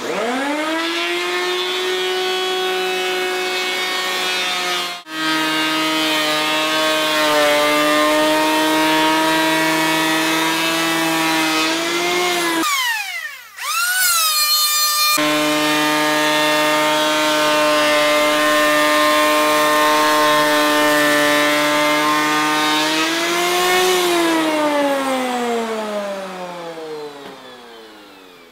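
Makita KP312 12-inch handheld power planer spinning up to a steady, high-pitched motor whine while planing a rough timber beam, breaking off briefly twice, then winding down with falling pitch near the end.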